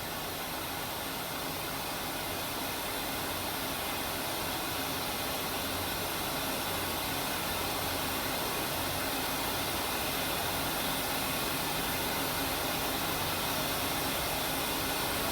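A steady, even rushing noise with a low hum underneath, from running machine-shop equipment. It holds level throughout.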